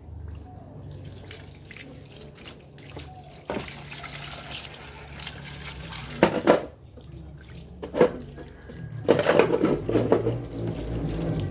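Tap water running into a sink, starting about three and a half seconds in, as blender parts are rinsed, with a few sharp knocks of parts against the sink, clustered near the end.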